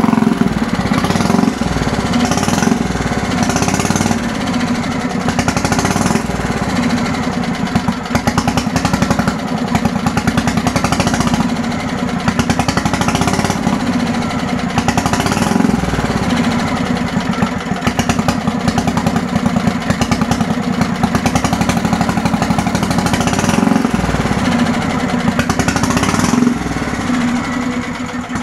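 Single-cylinder air-cooled engine of an old Bolens garden tractor running on its own with the air filter off, back to life after sitting over 25 years. Its pace rises and falls slightly, and the owner wonders if it is still getting too much gas.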